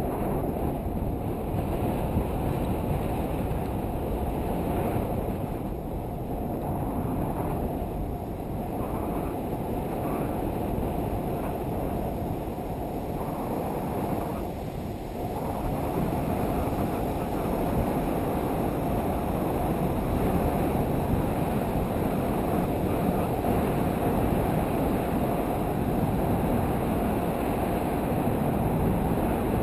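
Steady wind noise buffeting the camera's microphone during a tandem paraglider flight, easing briefly about halfway through.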